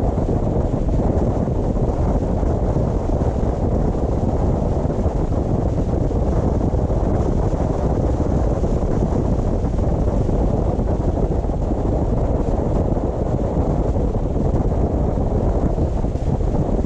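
A car driving along a road: steady, low rumble of tyre and wind noise with no breaks or changes.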